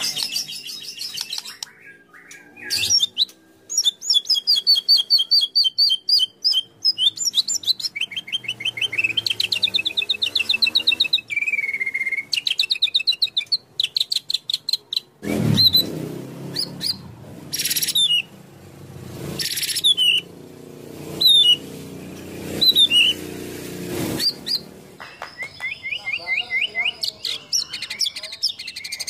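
White-rumped shama (murai batu) in full, vigorous song: long runs of rapid trilled notes and loud, sharp whistled phrases, varied and full of mimicked fill-ins. In the middle stretch the phrases come as separate loud notes with short gaps, over a low background noise.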